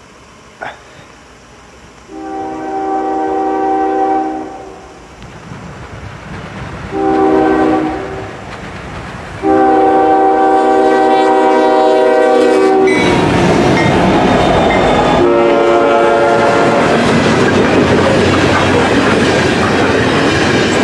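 A freight train's diesel locomotive sounds its multi-tone air horn in four blasts for a grade crossing as it approaches at speed. The third blast is long and is held as the locomotives pass close by. After that come a loud steady rumble and the clickety-clack of freight cars rolling past fast.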